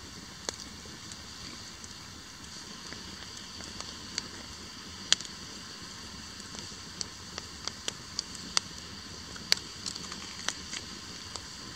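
Wood campfire crackling: irregular sharp pops, a dozen or so, over a steady hiss, with the strongest pops about halfway through and again near the end.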